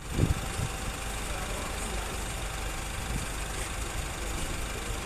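A vehicle engine idling steadily with a low, even rumble.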